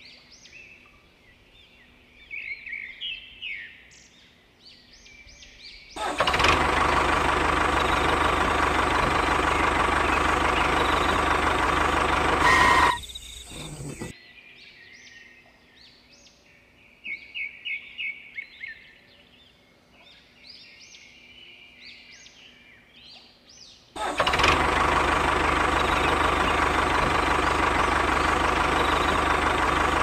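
A small electric motor of a homemade model machine runs twice, each time for about seven seconds at a steady pitch, and rises briefly in pitch just before it cuts off. Birds chirp in between.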